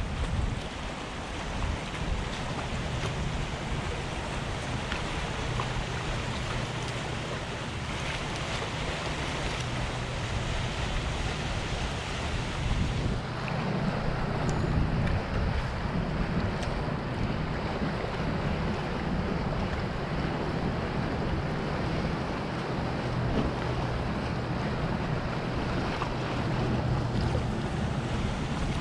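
Sea water washing and lapping against the rocks of a jetty, with wind buffeting the microphone: a steady rush of surf and wind noise.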